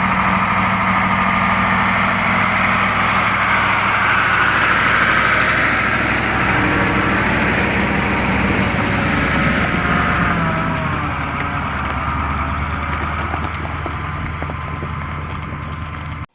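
An engine running steadily, settling lower in pitch and level about ten seconds in, and cutting off suddenly at the end.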